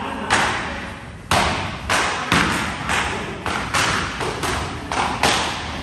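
Jiu-jitsu belts lashing the back of a promoted student's gi as he walks the belt-promotion gauntlet: sharp cracks, about two a second and unevenly spaced, each with a short echoing tail.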